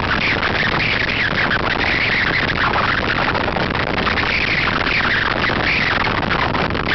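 Loud, steady rush of wind buffeting the microphone on a motorcycle moving at road speed, with engine and road noise underneath.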